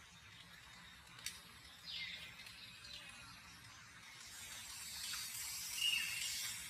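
Faint outdoor ambience: a click, a few short high falling chirps, then a steady high hiss that swells from about four seconds in, with one brief high call near the end.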